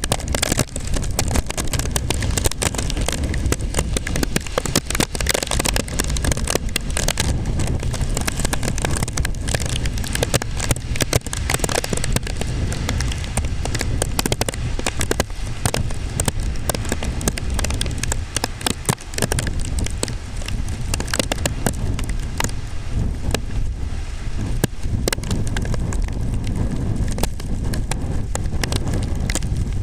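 Typhoon wind and rain: a steady heavy rumble of wind buffeting the microphone, with dense crackling all through.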